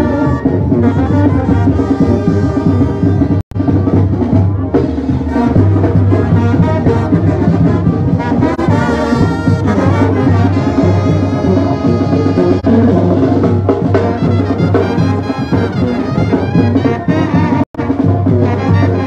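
Mexican street brass band playing as it marches: trombones and a sousaphone over a drum beat, with a strong bass line. The sound drops out for an instant twice, about three and a half seconds in and near the end.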